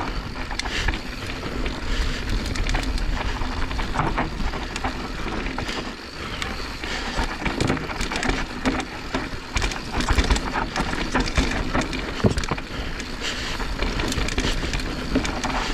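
Mountain bike descending a loose, dry dirt trail: tyres rolling and sliding over the dirt, with a constant run of clicks, knocks and rattles from the bike over the rough ground.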